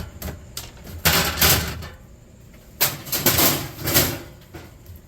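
Scrap being handled: sharp knocks and two longer stretches of clattering and scraping, about a second in and again around three seconds in.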